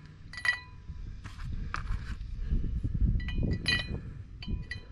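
Steel wheel studs clinking against a new brake rotor and hub as they are set loosely into their holes by hand: a string of sharp metallic clinks, each ringing briefly.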